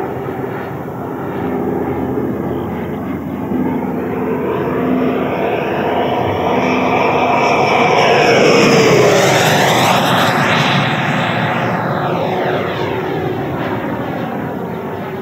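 Electric ducted-fan jet model (JETFAN-120 PRO fan on a HET Typhoon motor) in flight: a whine and rush of air from the fan. The sound swells as the jet makes a low pass about eight seconds in, its pitch dropping as it goes by, then fades.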